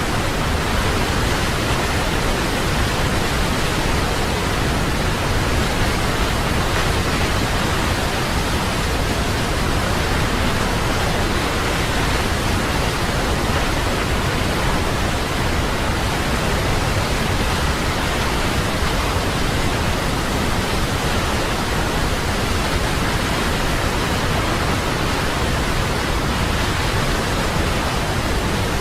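Waterfall: a steady, even rush of falling water, like white noise, with no change in level or pitch.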